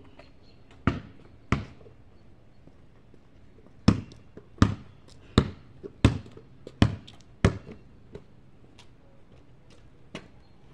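Basketball bouncing on a paved driveway as it is dribbled: two bounces about a second in, then a run of about seven sharp bounces, roughly three every two seconds, then a couple of fainter ones near the end.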